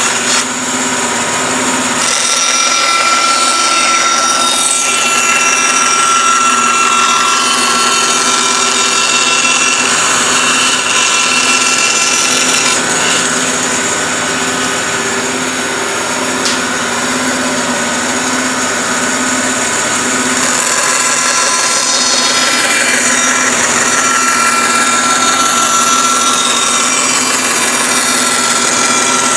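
Bandsaw running and cutting through wood, a steady motor hum under the noise of the blade in the cut, shifting in pitch as the cut goes on.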